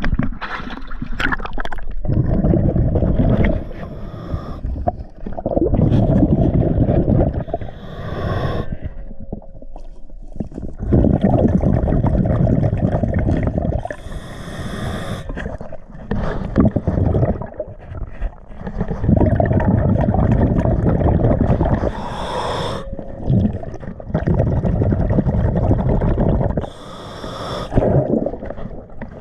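A diver breathing through a scuba regulator underwater: each exhale sends out a rumbling, gurgling rush of bubbles lasting a couple of seconds, and each inhale is a short hiss through the regulator. The cycle repeats about every five to six seconds.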